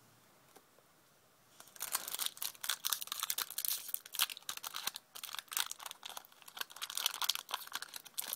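Foil Yu-Gi-Oh booster pack wrapper crinkling and tearing as it is ripped open by hand: a dense run of sharp crackles starting a couple of seconds in, with a short pause midway.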